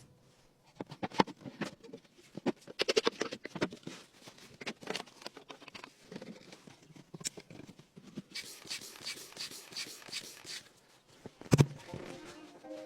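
Irregular handling sounds: scattered clicks and knocks, then a couple of seconds of rapid crinkly rustling in the second half, and one loud thump near the end.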